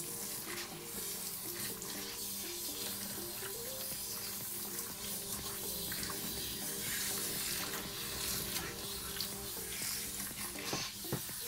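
Water from a handheld grooming-bath shower sprayer running in a steady hiss onto a wet dog's coat as it is rinsed, with background music underneath.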